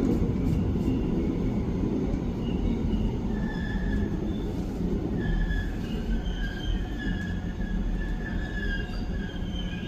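A 2003-built Korail Suin-Bundang Line electric multiple unit running, with a steady low rumble. About a third of the way in, a high wavering wheel squeal sets in and continues.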